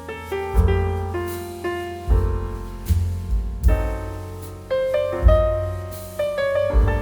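Piano music: a steady melody over a repeating bass note, each note struck and fading away.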